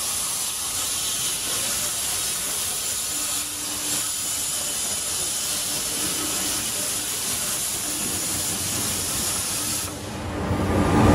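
Steady hiss of a CNC machine's cutting torch cutting steel. The hiss drops away about ten seconds in, and a louder, lower rumble starts to build near the end.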